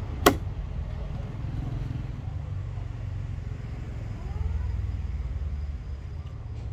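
One sharp knock about a third of a second in, over a steady low rumble.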